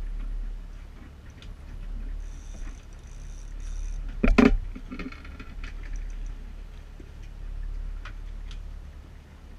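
Fishing reel cranked while playing a hooked salmon, giving light intermittent ticking over a steady low rumble. One loud short knock about four and a half seconds in.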